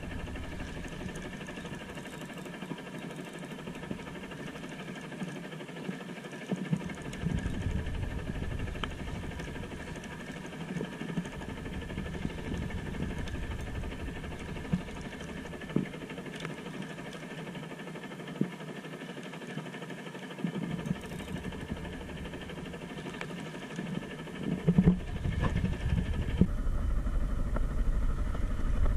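A boat's engine idling steadily, with occasional short clicks and knocks. It gets louder near the end.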